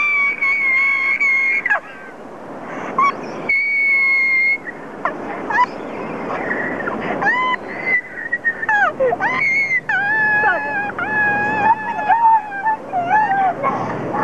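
High-pitched human screaming: long held cries that bend and waver in pitch, breaking off and starting again, over a steady background hiss.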